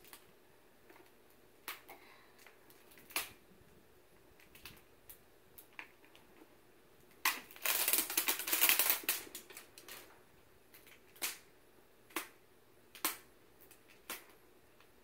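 Hands handling a plastic L.O.L. Surprise toy ball: scattered clicks and taps, and about seven seconds in, a couple of seconds of crinkling as its plastic wrapping is pulled off.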